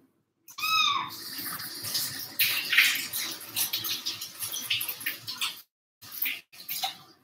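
A young kitten gives one short meow about half a second in, followed by a few seconds of scratchy noise with short clicks.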